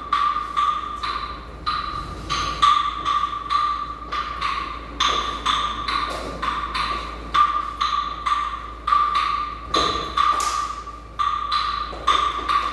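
A pitched percussion instrument with a wood-block-like knock, struck about two to three times a second in an uneven dance rhythm, each stroke ringing briefly at the same high note.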